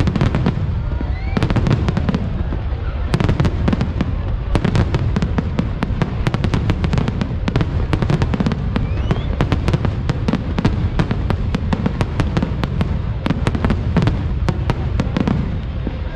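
Aerial fireworks display: a dense run of sharp bangs and crackles, many a second, over a low rumble of bursting shells.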